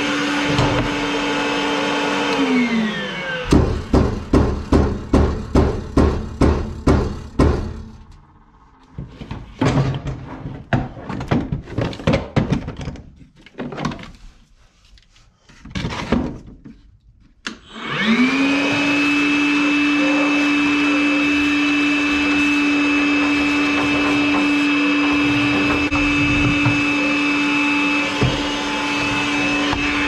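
Makita cordless wet/dry vacuum running with a steady whine, vacuuming out the furnace's burner chambers. It is switched off and spins down a couple of seconds in. About a dozen quick knocks follow at two to three a second, then scattered lighter clicks, before the vacuum spins back up about halfway through and runs steadily.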